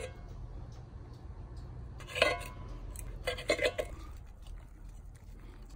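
Steel knife and fork clinking and scraping against a cast iron skillet while slicing a steak. There is one sharp ringing clink about two seconds in and a short cluster of clinks about a second later, over a low steady rumble.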